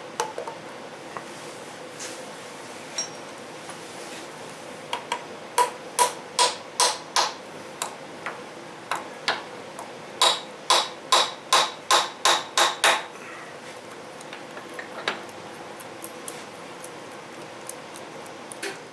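Sharp, ringing metal taps in two runs, about five strikes then about seven, two to three a second, with a few stray clicks: a hammer tapping an adapter slug into the bore of a milling-machine rotary table.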